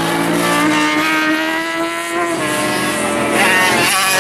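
Classic superbike racing motorcycle engines running at racing speed, the note sinking as the bikes slow into a tight corner, then a rising rev about three seconds in as a bike accelerates out.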